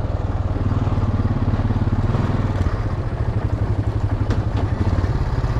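ATV engine running steadily under load as it rides into a water-filled mud hole. Its tone eases about halfway through, with a few sharp knocks about four seconds in.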